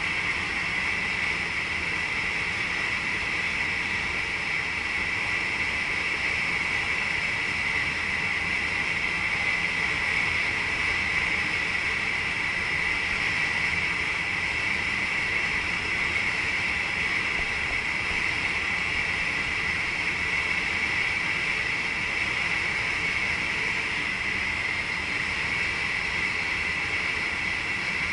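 Steady noise inside the driver's cab of a VIRM double-deck electric train: an even rushing hiss with a bright high band, unchanging throughout.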